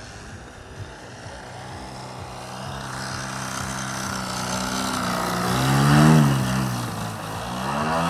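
Engine and propeller of a large radio-controlled Edge 540 aerobatic model plane, growing louder as it comes in low and passing close about six seconds in, its pitch dropping as it goes by. Near the end the pitch rises again as it powers up into a climb.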